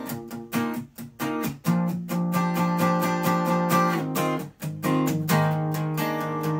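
Solo acoustic guitar playing: quick picked notes for the first second or two, then ringing chords.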